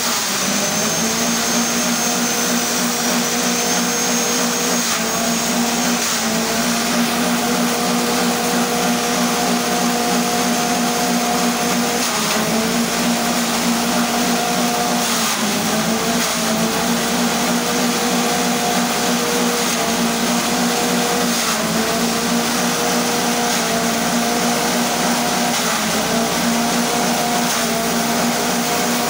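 Motor-driven forage chopper (grass chopper) running fast with a steady whirring. Its pitch sags briefly every few seconds and then climbs back as bundles of stalks are fed into the blades, loading the machine.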